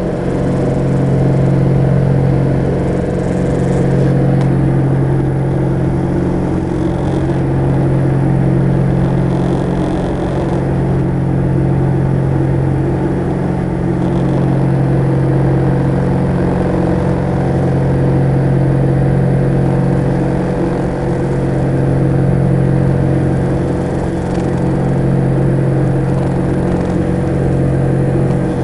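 Diamond DA42 Twin Star's two propeller engines droning steadily, heard inside the cabin. The drone swells and fades about every two to three seconds, the beat of the two propellers turning at slightly different speeds.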